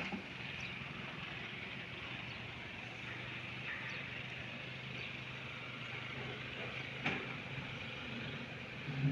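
Low steady engine hum of heavy machinery working, under a steady outdoor hiss, with a sharp click about seven seconds in and a short low thump near the end.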